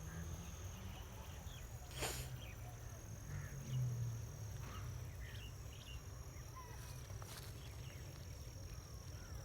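Rural outdoor ambience: scattered short bird chirps over a steady high-pitched whine and a low rumble, with a sharp click about two seconds in.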